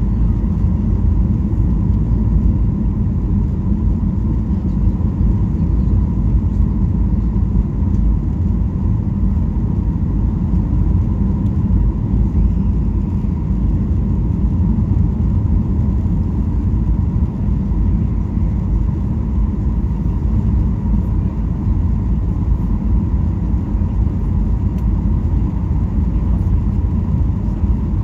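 Steady cabin noise inside a Boeing 737-800 descending on approach: a deep, even rumble of its CFM56-7B turbofan engines and rushing air, with a faint steady whine above it.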